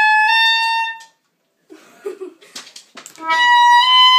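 Clarinet played high in its register: a short run of held notes climbing step by step, ending about a second in. After a pause with some faint knocks and low noises, another run of held high notes starts about three seconds in, rises slightly, then steps down near the end.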